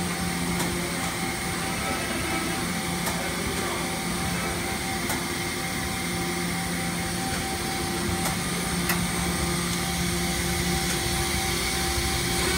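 Mazak Variaxis 630-5X machining center running as its tilting trunnion table swings, a steady machine hum made of several tones, with a few faint ticks.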